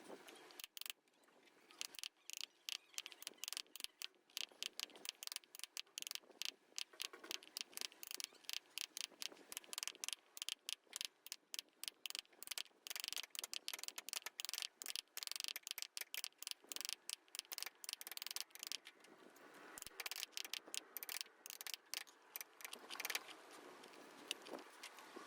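Wood carving in progress: quick, sharp taps of a carving chisel being worked into wood, several a second, with a brief lull about three quarters of the way through.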